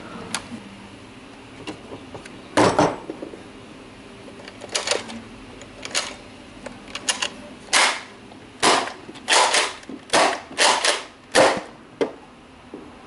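Nerf Rival Kronos spring blaster, fitted with a spring spacer, being primed and fired over and over: a run of short, sharp clacks, about a dozen of them, several coming in quick pairs.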